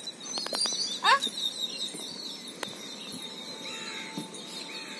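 Outdoor ambience with small birds chirping, a few light clicks about half a second in, and a short pitched call about a second in.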